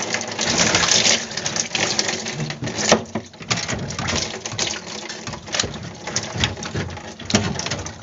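Water from a hose splashing and pattering over packed frost and slushy ice in a single-door refrigerator's freezer compartment, with many small clicks of dripping meltwater and shifting ice, as the freezer is defrosted. It is louder for the first few seconds, then dips briefly and carries on a little quieter.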